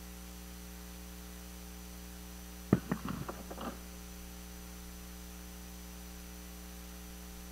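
Steady electrical mains hum picked up by the lectern microphone. About two and a half seconds in comes one sharp knock, then several softer knocks over the next second, as a book is lifted and handled on the lectern close to the microphone.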